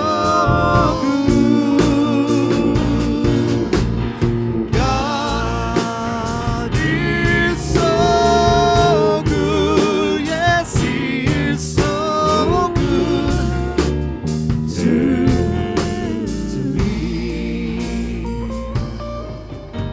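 Live gospel praise-and-worship song from a church band: a voice singing long, wavering held notes over guitar and band accompaniment.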